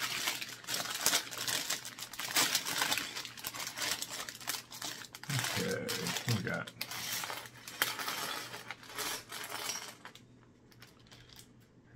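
A plastic LEGO parts bag crinkling as it is torn open and handled, then small plastic LEGO pieces spilling out and clattering onto a wooden tabletop.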